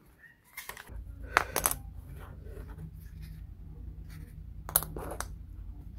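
Small laser-cut plywood model parts and a clear plastic window sheet being handled, giving a few light clicks and taps: a cluster about a second and a half in and two more near the end. A steady low hum sits underneath from about a second in.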